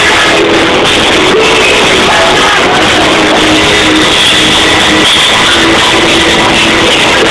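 A live rock band playing, with electric guitar and drum kit, loud and steady.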